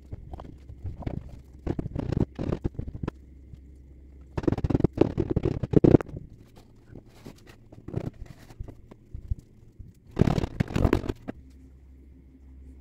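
Scraping and crunching of casting sand being worked by hand in a moulding flask, in three main bursts with small knocks between them.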